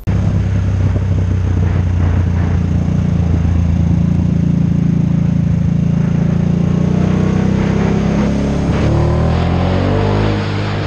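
Harley-Davidson Nightster RH975's V-twin engine running steadily while riding. About eight seconds in, the engine note rises as the bike accelerates.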